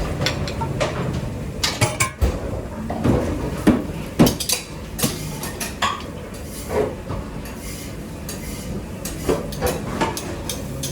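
Pots, pans and metal utensils clattering in a busy restaurant kitchen: irregular clanks and knocks, some ringing briefly, over a steady low hum.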